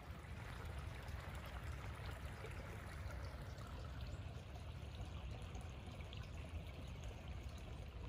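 Steady trickle of running water, with a low wind rumble on the microphone.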